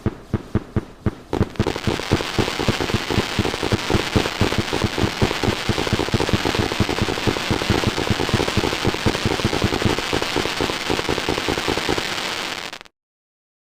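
Fireworks going off: a string of sharp firecracker bangs, several a second, thickening about a second and a half in into a dense crackling barrage that cuts off suddenly near the end.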